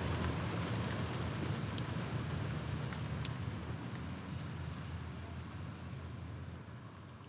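Steady rain with a low rumble underneath and a few faint drips, gradually fading out.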